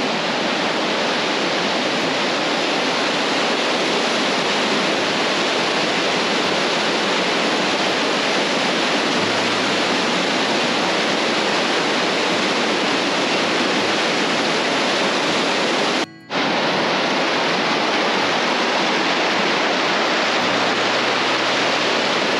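Mountain creek running high: a steady, loud rush of water that the hikers call raging. The sound cuts out for a moment about sixteen seconds in.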